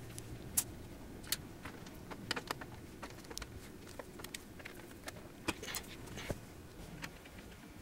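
Irregular light clicks and metallic knocks from handling a Yamaha RX-495 receiver's sheet-metal chassis and a screwdriver during reassembly.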